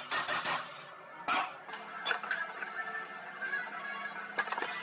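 Hammer blows on steel front-suspension parts, knocking the upper control arm's ball joint loose so it pops out. There is a quick run of sharp metallic clanks at the start, another about a second in, and two more close together near the end.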